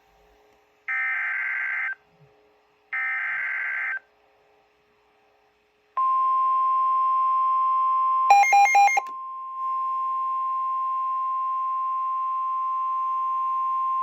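Emergency Alert System SAME header: two one-second raspy digital data bursts, a second apart. After a two-second pause comes the steady 1050 Hz NOAA Weather Radio warning alert tone, held for several seconds. About eight seconds in, a short run of rapid electronic beeps briefly overlays the tone.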